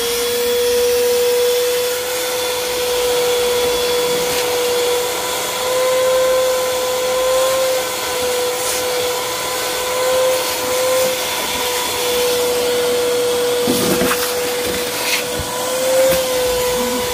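Shop vacuum running steadily with a high whine and rushing air as its hose sucks dirt and debris out of the van's floor compartment, with a few short knocks of debris in the hose near the end.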